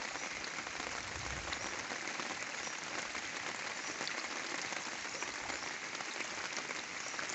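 Steady, even hiss of water with a few faint ticks, heard while wading waist-deep through floodwater.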